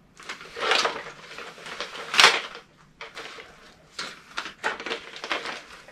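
Airsoft gear being handled: rustling, scraping and knocks of the rifle and plate-carrier kit. The loudest is a sharp clack about two seconds in, followed by a run of smaller knocks near the end.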